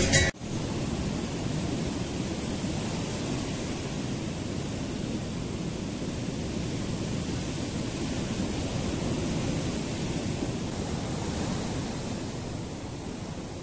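Steady wash of ocean surf breaking on a sandy beach, easing slightly near the end.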